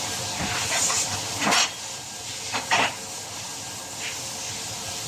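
Hammer knocks on car body sheet metal: one louder strike about a second and a half in, then two quick ones close together just before the three-second mark, over a steady hiss.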